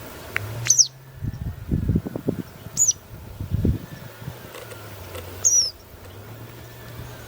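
A bird giving short, high calls that slide downward in pitch, three of them a couple of seconds apart, over a low steady hum and some low rumbling thumps.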